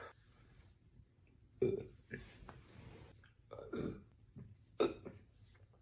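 A young woman burping, several separate burps a second or so apart.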